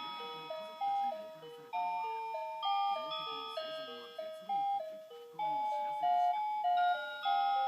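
Citizen Moulin alarm clock playing its melody alarm: a simple tune of clear notes stepping up and down, about two or three a second.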